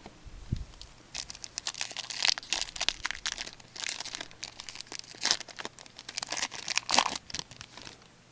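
Trading card packs and cards being handled: the wrapper crinkles and the cards rustle in a quick run of short crackles that starts about a second in.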